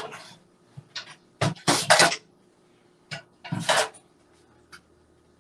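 Kitchen utensils scraping and clinking against pots and plates in several short bursts while food is served, with a few lighter clicks between them.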